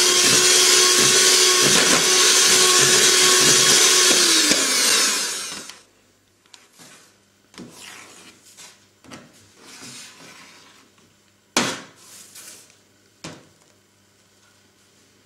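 Electric hand mixer beating thick ganache in a plastic bowl, running at a steady speed, then winding down and stopping about five seconds in. After that, quiet scraping of a metal spatula spreading the ganache in a tray, with two sharper strokes near the end.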